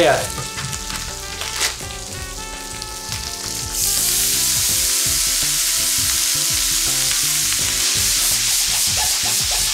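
A stainless steel frying pan with chorizo and prawns sizzles quietly. About four seconds in, a frozen paella mix is poured in and the pan starts sizzling much louder and keeps a steady hiss as the still-frozen food hits the hot oil, while it is stirred with tongs.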